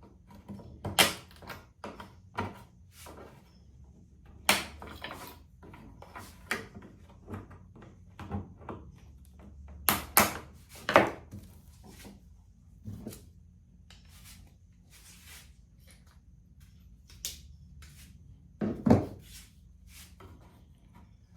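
Wooden workpieces being handled on a workbench: irregular knocks, clicks and thuds, with louder ones about a second in, around ten to eleven seconds in, and near the end.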